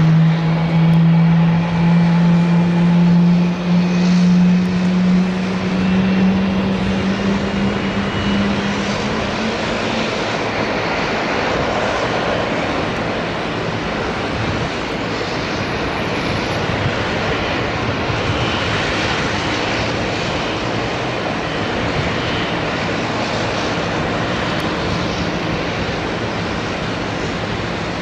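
Boeing 777-300ER's GE90 turbofan engines running during pushback: a low whine that rises slowly in pitch over about the first ten seconds and then fades, over a steady engine roar.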